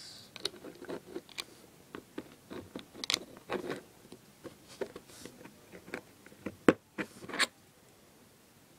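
Small plastic Lego pieces being handled and pressed together: scattered light clicks and brief scrapes, with a sharper click about three-quarters of the way through.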